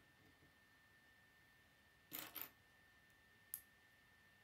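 Plastic K'nex pieces clicking as they are handled and snapped together: a quick double click about two seconds in and a single sharp click near the end. A faint steady high tone sits underneath.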